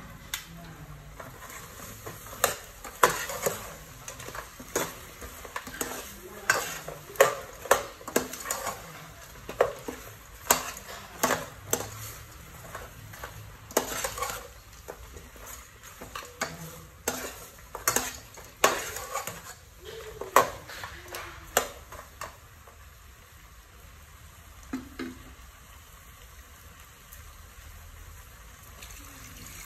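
A utensil stirring chunks of pork in a stainless-steel pot, clinking and scraping against the metal many times over the bubbling of the simmering sauce. The stirring stops about three quarters of the way through, leaving the soft bubbling.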